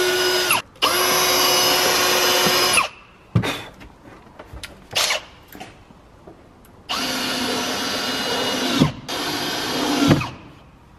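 Cordless drill-driver running in short bursts of a steady whine, a second or two each, driving screws to fit a hinge to a plywood lid. In the quieter gap between the first and last bursts there are a few knocks and clicks.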